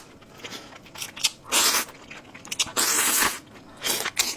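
Someone slurping noodles: three loud, hissing slurps, the middle one the longest, with quieter mouth and eating noises between.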